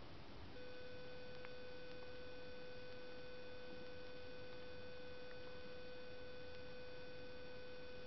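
A steady, unchanging tone with a few overtones sets in about half a second in and holds, over a faint background hiss.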